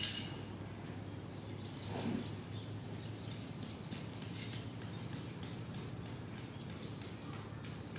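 Small wood fire crackling: disposable wooden chopsticks burning in a stove made from a Coca-Cola can, with irregular sharp pops that come thicker from a few seconds in.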